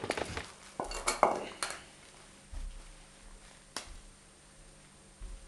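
Sharp clicks and metallic clinks from gear being handled close to the microphone: a quick cluster in the first two seconds, one more click near four seconds, and a few dull low thumps.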